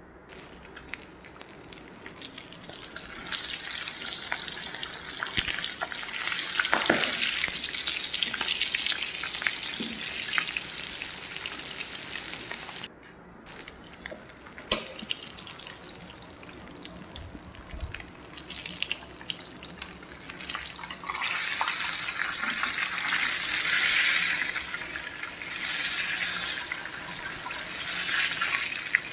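Flour-coated duck pieces sizzling and crackling in hot oil in a frying pan, louder in the last third. There is a single sharp click about halfway through.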